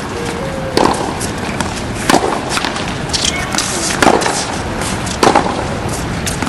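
Tennis rally on a hard court: four sharp racket-on-ball strikes about a second and a half apart, with lighter ball bounces and clicks between them.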